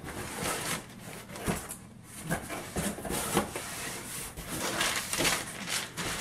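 Corrugated cardboard shipping box being pulled open, its flaps scraping and brown packing paper rustling as hands work inside it: a string of uneven rustles and scrapes.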